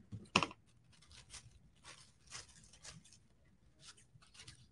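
Thin clear plastic sheet crinkling softly as it is handled and snipped with scissors, in short irregular strokes.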